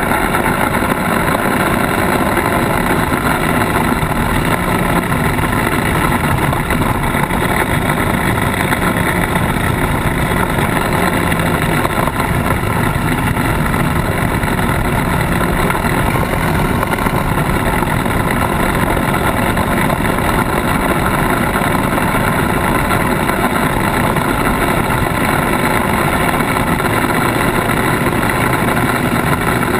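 Polaris RZR side-by-side driving over a dirt and gravel track, heard from its bumper: a loud, steady din of engine and tyre noise.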